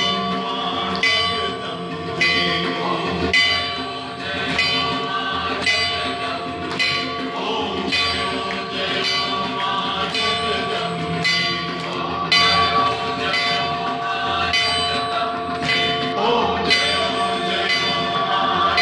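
Temple bell struck steadily, a little under twice a second, its ringing tones carrying on between strikes, as rung during a Hindu aarati.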